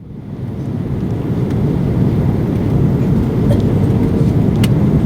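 Steady cabin roar of an Airbus A330-300 in flight, the low rumble of engines and airflow heard from a passenger seat, fading in over the first couple of seconds, with a few faint clicks.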